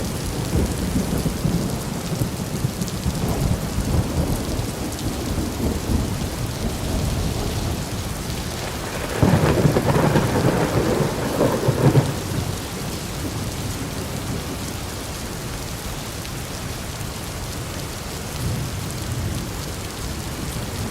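Steady rain with thunder rumbling low in the first few seconds. About nine seconds in, a louder, sharper thunderclap crackles for about three seconds, then the rain continues alone.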